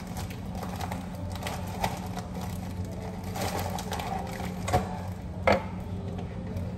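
Steady low hum, with scattered light clicks and a few sharper knocks and clatters from kitchen utensils and food being handled.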